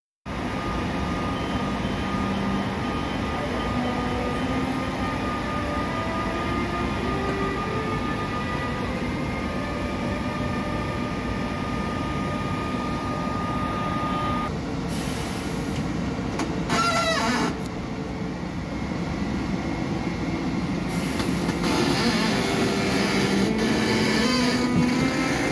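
ÖBB class 1116 Taurus electric locomotive pulling away with a train, its traction converters giving a series of tones that step upward in pitch like a scale, heard twice, over steady running and rail noise. A brief squeal comes about two-thirds of the way through.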